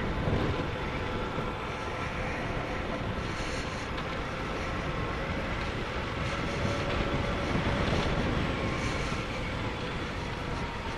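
Motorcycle riding at a steady speed: engine running evenly under a constant rush of wind noise over the microphone.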